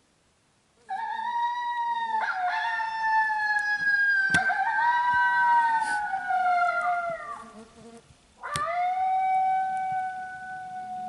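Coyote howls: long drawn-out calls that slowly fall in pitch, starting about a second in, with a second howl overlapping the first, then a short break and another long, steady howl near the end. Two sharp clicks cut through, the second just as the last howl begins.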